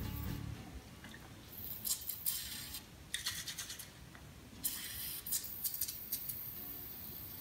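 Aerosol can of STA-BIL fogging oil hissing in two spray bursts, the first about a second and a half in and the second at about four and a half seconds, with a few clicks. The oil is being sprayed through the spark plug holes to coat a snowmobile engine's cylinders for storage.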